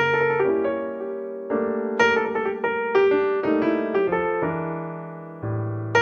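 Background piano music: notes and chords struck every half second to a second, each ringing and fading before the next.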